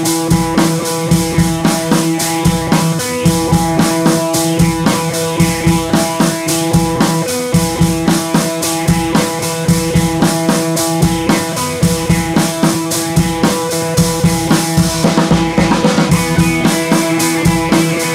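Background music with a steady drum-kit beat over sustained held notes.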